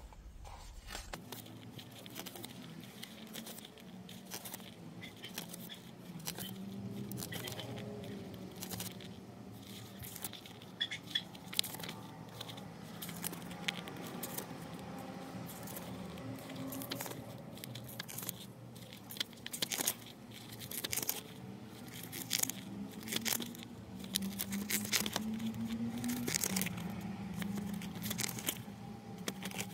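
Paper pages of a booklet being turned and handled, with irregular rustles and crinkles throughout, over a faint low hum.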